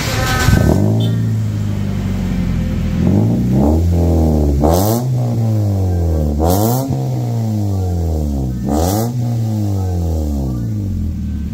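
Toyota Yaris engine running through an aftermarket Hi-Power racing exhaust with a large blue-burnt tip: a steady idle with about four quick throttle blips, the first smaller, each rev rising sharply and dropping back to idle.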